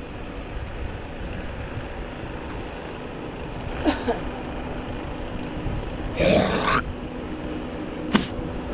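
Wind noise on the microphone of a bicycle-mounted GoPro, with tyre noise on asphalt. A sharp knock comes about four seconds in, a short louder rush a little after six seconds, and a click near the end.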